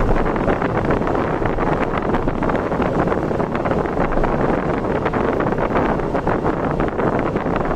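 Wind buffeting the microphone over the steady running noise of a vehicle travelling at speed on the road.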